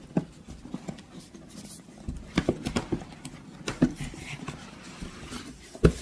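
Rigid cardboard box being handled and its lid lifted off: scattered taps and knocks of hands and cardboard, with one sharper thump near the end.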